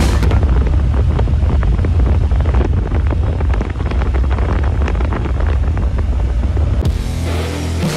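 Heavy wind buffeting on the microphone of a moving motorcycle, a deep steady rumble with irregular gusty crackle. Music fades in near the end.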